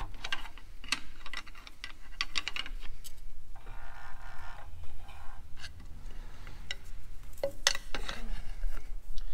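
Metal clicks and scrapes of a pry bar levering the crankshaft pulley, turning a Daihatsu DM950D three-cylinder diesel over by hand to rotate it 180 degrees for valve adjustment. Irregular clicks, with a scraping sound lasting about a second around four seconds in and another cluster of clicks near the end.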